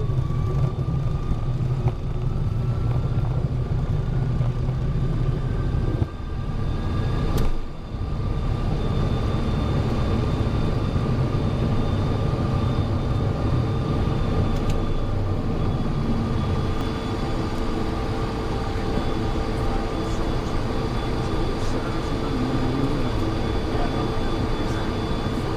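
Cessna Citation XL's twin turbofan engines running, heard from inside the jet: a steady low rumble with thin whining tones on top.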